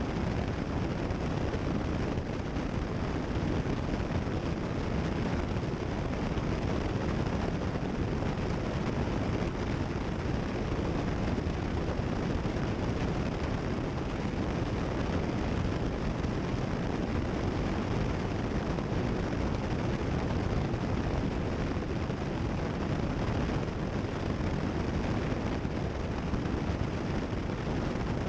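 Cessna 172 Skyhawk in cruise flight: steady engine and propeller drone mixed with airflow noise, heard through the cockpit headset audio.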